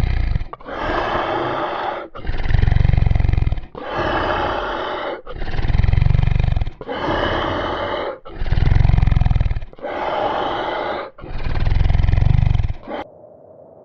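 Dinosaur roar sound effects repeated one after another, about nine roars of a second and a half each, every other one with a deep rumble underneath. They stop abruptly near the end.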